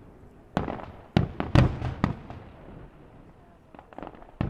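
Aerial firework shells bursting: a quick run of sharp bangs with rumbling echoes in the first two seconds, then a few fainter cracks and one more bang near the end.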